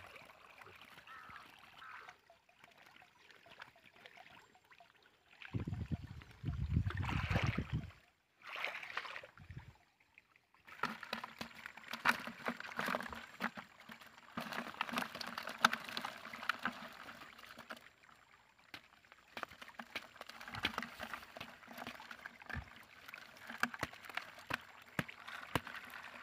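Fish, crabs and water being shaken out of a woven bamboo fish trap into a plastic bucket: a dense run of small clicks, patters and splashes that starts about eleven seconds in. Before that, a short loud low rumble of handling around six to eight seconds in.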